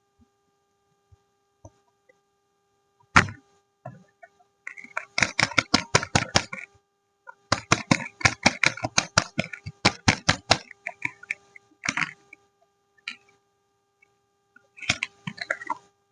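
Soap being unpacked by hand: a sharp knock about three seconds in, then long runs of crisp clicks and crackles at about six a second from the packaging and bars being handled, over a faint steady hum.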